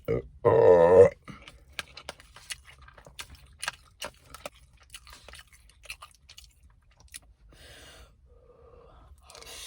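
A loud hummed "mmm" of enjoyment, then a person chewing crunchy food close to the microphone: a long run of short, sharp crunches and mouth clicks.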